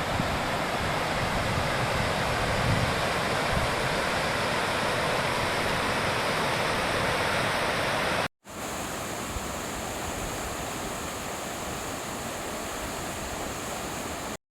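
Steady rushing water, like a fast mountain stream. About eight seconds in it breaks off for a moment and resumes in a slightly different take with a thinner, hissier sound, then cuts off abruptly near the end.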